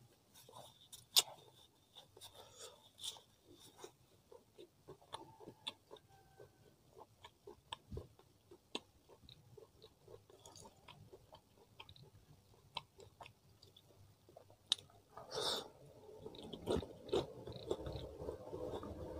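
Close-miked chewing of grilled chicken and rice, with many small wet clicks and lip smacks; it gets louder about three quarters of the way through.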